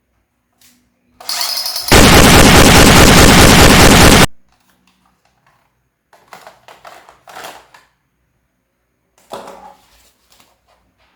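Machine-gun fire sound effect: one loud, unbroken burst of rapid fire lasting a little over two seconds. A softer sound comes just before the burst, and a few faint clicks and rattles follow it.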